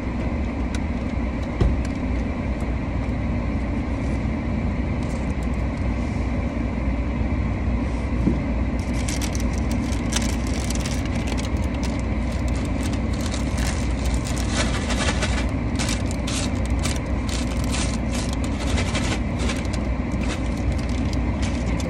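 Aluminium foil and a paper takeout bag crinkling on and off from about nine seconds in as a foil-wrapped burrito is handled, over the steady low hum of a car's cabin.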